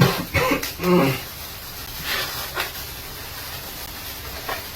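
A man's short wordless vocal sounds in the first second, then faint rustling and light clicks.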